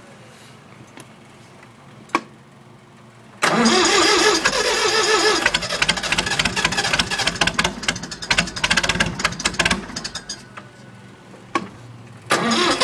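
International Harvester 584 tractor engine cold-starting: after a few quiet seconds it fires and catches suddenly, then runs rough and uneven. Its sound drops for a couple of seconds near the end, then picks up again.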